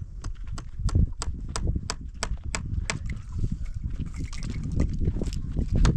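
Steady rhythmic knocking, about three sharp strikes a second, over a low rumble.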